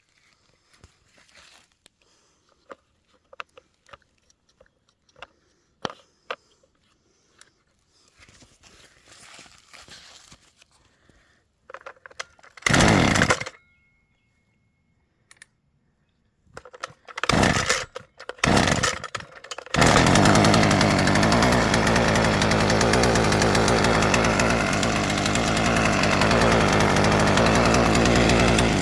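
Husqvarna 124C two-stroke string trimmer engine being pull-started from cold: quiet clicks and handling noises, then a brief loud firing about 13 seconds in and several short bursts a few seconds later, before it catches about 20 seconds in and runs steadily.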